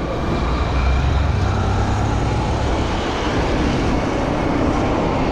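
Steady rushing road and traffic noise heard from a bicycle riding along a busy city street among cars.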